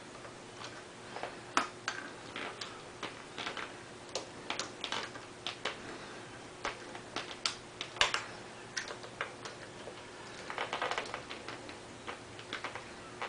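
Irregular light clicks and metallic taps of hand tools at work on the thermostat housing, with a short burst of rapid clicks about ten and a half seconds in.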